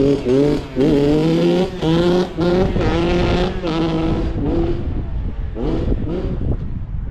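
Suzuki RM65's 65cc two-stroke single revving hard as the dirt bike pulls away, the pitch climbing and dropping several times as it shifts up through the gears, then fading as the bike rides off.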